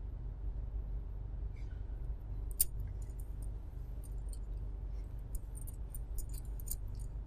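Steady low hum of the hall recording, with a sharp click about two and a half seconds in and a run of faint crackles and rustles near the end as a sheet of paper is handled close to the microphone.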